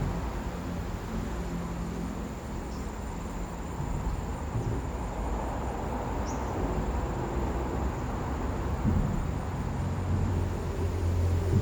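Insects giving a steady high-pitched trill over a low rumble that grows louder near the end.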